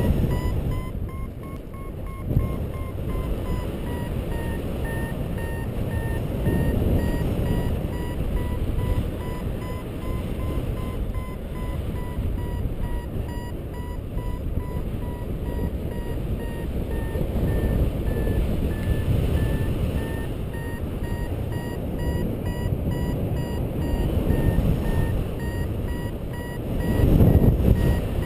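Paragliding variometer beeping in quick short tones that run on throughout, the pitch drifting slightly up and down: the audio signal that the glider is climbing in rising air. Wind rushes over the microphone underneath and swells near the end.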